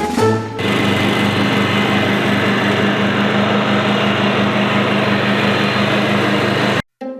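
Riding lawn mower engine running steadily, then cut off abruptly near the end.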